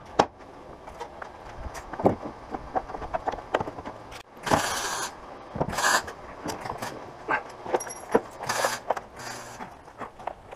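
Clanks, clicks and creaks of boat hardware being handled, with a few short scraping sounds, the loudest about halfway through.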